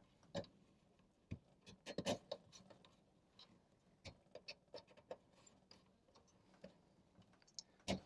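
Faint, irregular clicks and ticks of a small screwdriver turning down the screw terminals on a VISTA-21IP alarm control panel's terminal strip, clamping the keypad's wires, with small clusters of clicks about two seconds in and again around four to five seconds.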